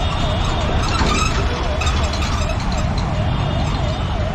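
An emergency vehicle's siren wailing up and down in pitch, about two and a half sweeps a second, over a steady low rumble of road traffic.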